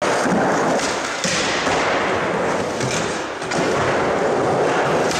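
Skateboard wheels rolling over a concrete floor with a steady grinding rumble, broken by a few thuds of the board.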